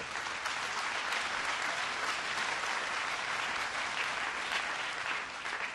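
Audience applauding steadily, then cutting off suddenly.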